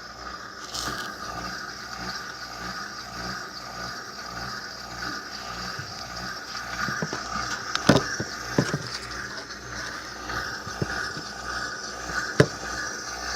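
Electrolux LTE06 top-load washing machine running with water flowing steadily through it, with a few light knocks.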